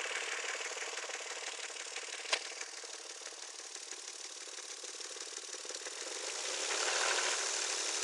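KF-11 engine running with a fast, even knocking from its timing-belt idler rollers and tensioner, which are worn and due for replacement. A single sharp click comes about two seconds in, and the sound grows louder shortly before the end.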